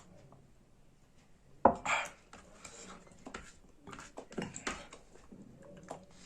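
Dishes being handled during a meal: a sharp knock on a plate or bowl about a second and a half in, then a scrape and scattered light clinks and scrapes.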